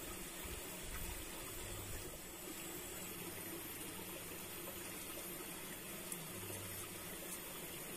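Steady trickle of water flowing in a small stream.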